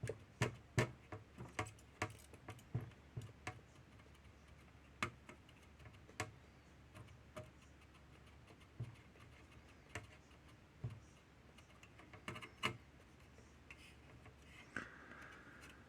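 Irregular light clicks and taps as an HDMI port is rocked with a soldering iron tip while its joints are held molten in low-melt solder. Several come in quick succession over the first few seconds, then they thin out to single ticks a second or more apart.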